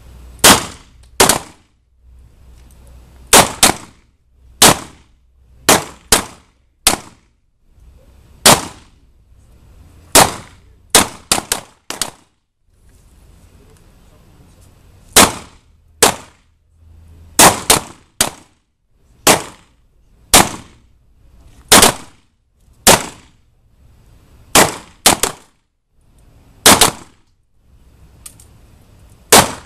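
Handgun shots from a line of kneeling shooters firing at will: about two dozen sharp reports at irregular intervals, sometimes two or three in quick succession, each with a brief ring-out.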